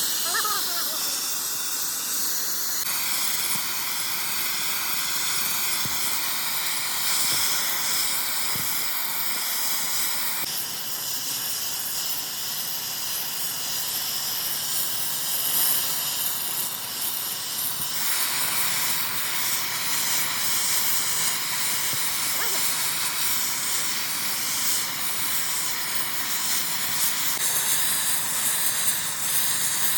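Steady, loud hissing that changes character abruptly at several points.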